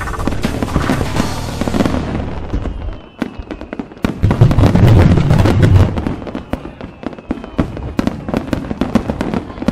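Fireworks bursting and crackling: a dense run of sharp pops and bangs, with a deep booming swell about four to six seconds in that is the loudest part.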